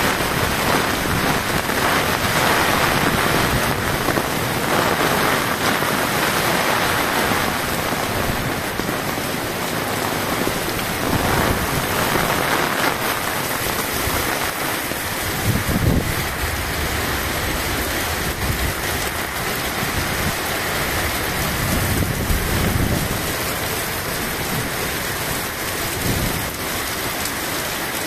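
Heavy rain pelting a paved street: a dense, steady, loud hiss. A few low rumbles swell in, about halfway through and again a little later.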